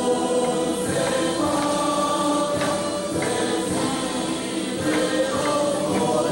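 Music with a group of voices singing held notes, and tambourine-like percussion strikes now and then.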